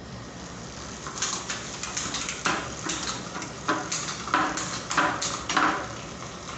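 Weapon Fiber rear hub freewheeling on a mountain bike, its freehub pawls ratcheting in repeated bursts of loud, rapid clicking that start about a second in.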